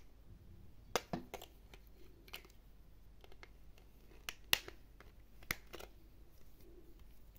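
Sharp, irregular plastic clicks and taps as a white plastic toy dog is handled and a small screwdriver works the screw of a plastic cover panel on its underside; the loudest click comes about four and a half seconds in.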